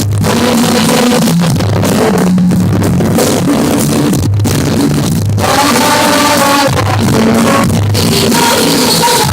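Live rock band music played loud: drums, bass and guitar, with a voice singing over them from about halfway through.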